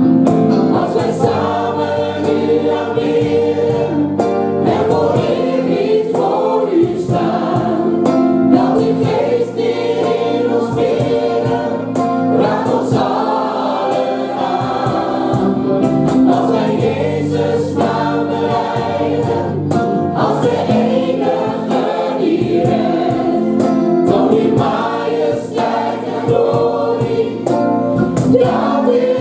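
Gospel worship team, men and women, singing a Dutch worship song together in harmony over music with a steady beat.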